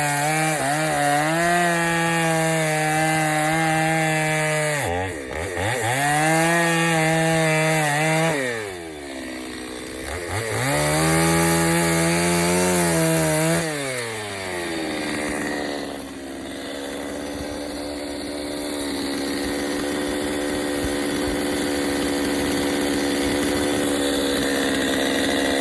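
Gas chainsaw at high revs cutting into a wood log for bear carving. The revs drop and pick back up twice in the first ten seconds, and from about midway on it runs steadily and quieter.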